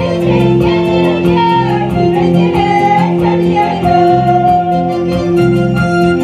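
Live church band music: an arranger keyboard playing a plucked, guitar-like melody over held chords and a steady ticking beat, with little or no singing.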